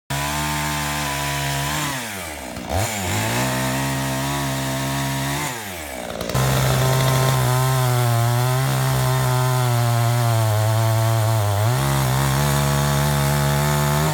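Chainsaw engine running at high revs, its pitch dropping sharply and recovering about two seconds in and again near the middle, then holding high and steady.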